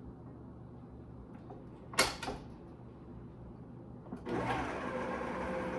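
Electric mixer motor running at low speed, stirring cheesecake batter with a steady hum. There is a sharp click about two seconds in. About four seconds in, a louder whir with a steady whine sets in.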